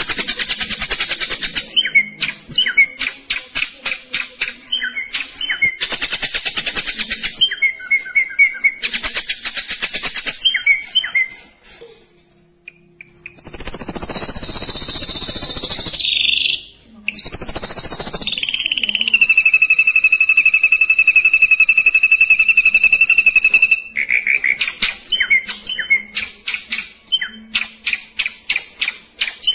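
Ashy drongo singing: runs of very fast, dense rattling trills, a short break, then long held high whistles, one sliding down into a steady whistle that lasts about five seconds, before the fast trills start again.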